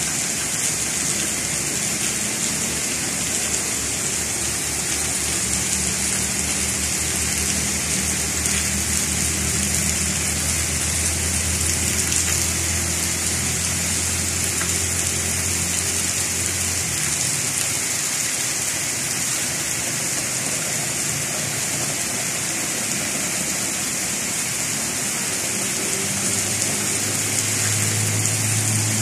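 Heavy rain pouring steadily, a dense, even hiss. A low motor hum runs underneath through the middle and comes back near the end.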